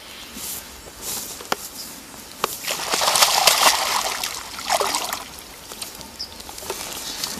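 Water splashing at the surface among lily pads, loudest for a second or two about three seconds in, with a shorter splash near five seconds.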